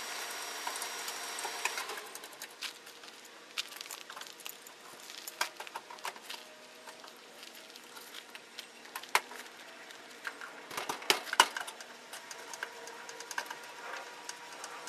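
Scattered clicks and light metallic taps of hand tools and breaker hardware being worked in a metal electrical service panel as the new breaker is screwed down, with a few sharper clicks in the second half.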